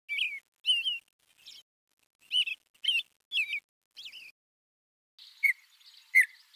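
A small bird chirping in short, separate high calls, a burst every half second or so. After a short gap, a few sharper single chirps come over a faint high hiss near the end.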